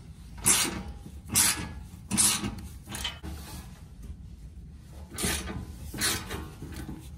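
Ratchet wrench with a 15 mm socket on an extension backing out the skid plate bolts, its pawl rasping in short strokes about once a second: six strokes, with a pause in the middle.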